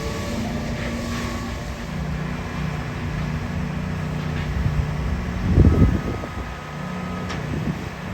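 Diesel engine of a concrete pump truck running steadily, its low pitch shifting in small steps, with one loud, low thud about two-thirds of the way through.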